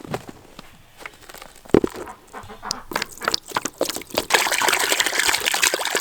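A run of scattered knocks and clicks, then from about four seconds in a steady rush of water pouring.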